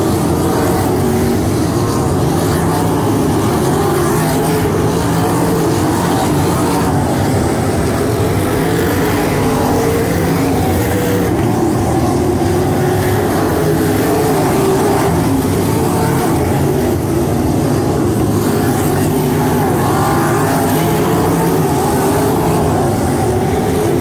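A field of 305 winged sprint cars racing on a dirt oval, their 305-cubic-inch V8 engines running hard together. The sound is loud and steady, with the engine pitch wavering up and down as cars come off and back onto the throttle and pass by.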